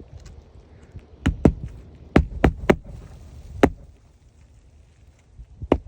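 Hammer blows on roofing nails in an asphalt shingle roof: about seven sharp strikes in uneven groups, most of them in the first half.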